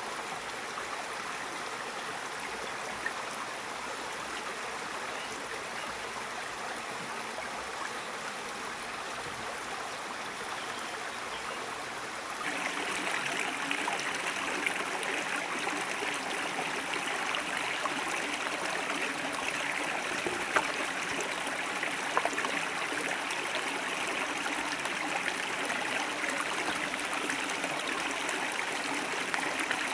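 Steady rush of river water, turning abruptly louder and brighter about twelve seconds in, with a couple of brief sharp clicks about two-thirds of the way through.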